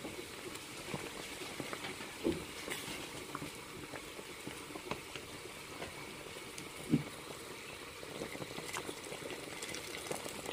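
Pot of browned chicken in water bubbling at a boil, a steady faint patter of small pops: the stock (yakhni) for chicken pulao cooking down. Two brief low thuds come about two and seven seconds in.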